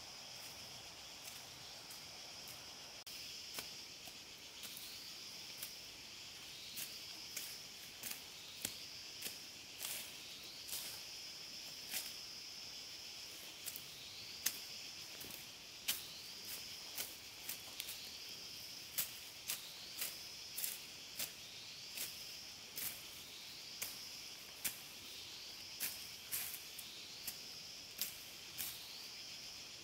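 Insects shrilling in a steady high drone, joined from a few seconds in by a short rising chirp repeated about every second. Sharp clicks, one or two a second and some louder than others, sound over it throughout.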